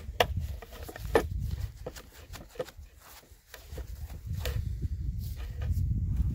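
Scattered clicks and light knocks of a submersible well pump's metal parts being handled as it is taken apart for cleaning, over a steady low rumble.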